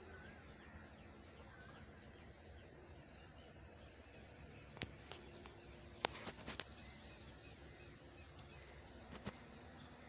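Faint outdoor background noise with a steady high hiss, broken by a few sharp clicks, loudest in a quick cluster about six seconds in.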